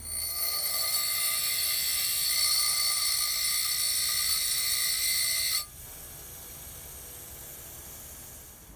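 Bench grinder wheel grinding the cutting-edge bevel on a forged steel scissor blade: a loud hiss with steady whining tones. The grinding stops suddenly about five and a half seconds in, leaving a quieter steady hum.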